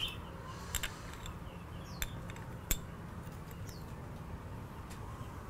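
A few light clinks of a small ceramic dish against a glass mixing bowl as seasoning granules are tipped in, spread over a few seconds, with a couple of faint bird chirps in the background.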